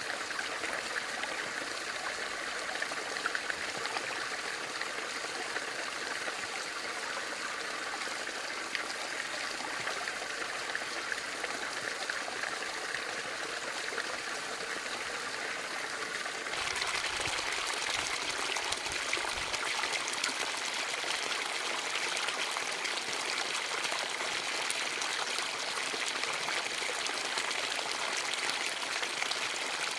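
Bamboo water fountain running, water trickling and splashing steadily into its basin. A little over halfway through the sound changes suddenly to a brighter, slightly louder splash.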